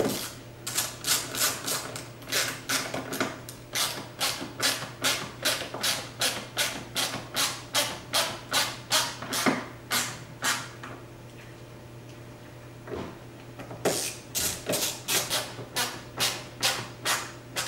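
Hand ratchet clicking in short back-and-forth strokes, about two to three a second, as a T15 Torx screw is run in. The clicking stops for about three seconds past the middle, then resumes for a few more strokes.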